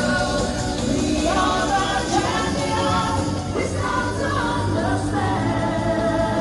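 Pop song performed live: singing over a steady band backing.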